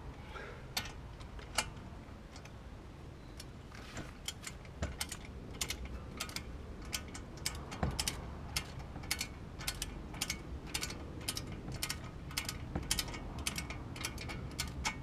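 Ratchet of a torque wrench clicking as a brake caliper bolt is wound in. There are a few scattered clicks at first, then steady clicking at about three to four a second from about four seconds in.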